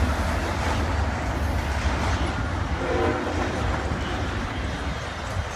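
Double-stack intermodal container train rolling past, its well cars making a steady rumble and rattle on the rails that slowly fades. A short, faint horn note sounds about three seconds in.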